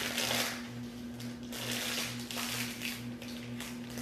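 Irregular scraping, rasping strokes of a bar of white chocolate being worked by hand with a black-handled kitchen tool, over a steady low electrical hum.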